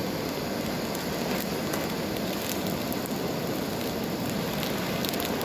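Butane flame gun running with a steady rushing hiss of its flame, with a few faint crackles from a plastic squeeze tube burning in it.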